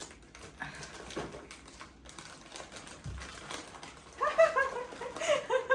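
Gift wrapping paper crinkling and tearing in rapid crackly bursts as a present is unwrapped by hand. About four seconds in, a high-pitched excited voice starts up over it.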